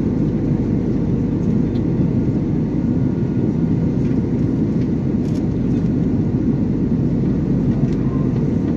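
Steady cabin noise of an airliner in flight: an even, low rumble of engines and airflow heard from inside the cabin, with faint steady tones above it.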